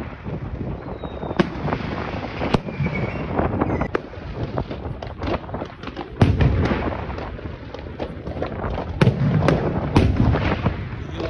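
Large aerial firework display shells (4- to 8-inch) bursting overhead: a string of sharp booms, the loudest about six seconds in and again around nine and ten seconds, each big one trailing off in a rolling rumble, with smaller pops scattered between.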